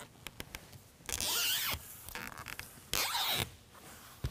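Red release liner being peeled off the 3M adhesive tape of an acrylic vent visor: two short peels, each about half a second, a second and a half to two seconds apart, with a few small clicks between.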